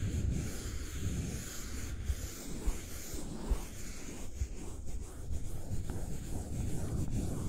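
Close-up soft rubbing and scratching of a thin hand-held tool worked over a small object, in uneven strokes, with a couple of light taps about three seconds in.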